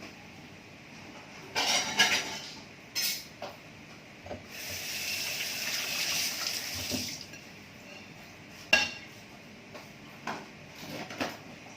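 Kitchen clatter of dishes and a pan being handled, with several sharp knocks. In the middle a steady rushing noise, like a tap running, lasts about two and a half seconds.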